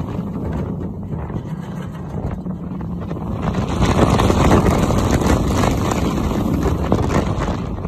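Kraken, a Bolliger & Mabillard floorless roller coaster, heard from the front seat in mid-ride: the train rumbling along the steel track under heavy wind rushing over the phone's microphone, growing louder about four seconds in.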